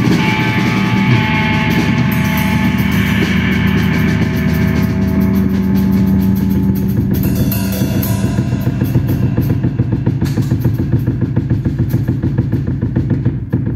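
Live electric bass run through effects, holding a dense low drone, with a Yamaha drum kit playing alongside. From about halfway in, the drumming turns to fast, rapid strokes, and the music starts to drop in level near the end.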